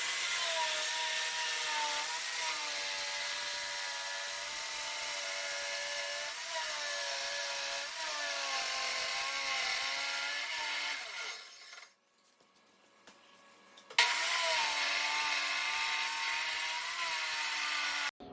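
Circular saw with a DeWalt 60-tooth fine-cut blade ripping lengthwise through a 1.5-inch-thick butcher block countertop, its motor whine wavering as it cuts. The saw winds down about eleven seconds in, then starts again about two seconds later and cuts off suddenly near the end.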